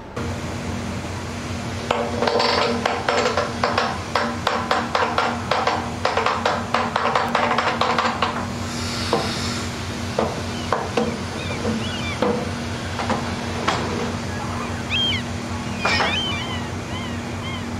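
Rapid clattering for several seconds over a steady low hum, then seabirds calling in short high cries that grow more frequent near the end.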